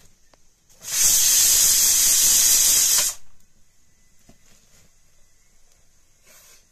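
A loud, steady hiss of rushing air or steam lasting about two seconds, starting abruptly about a second in and cutting off sharply, with a faint short puff of the same near the end.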